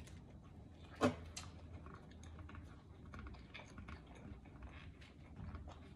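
Close-miked chewing of pizza: irregular small crunching and wet mouth clicks, with one louder click about a second in.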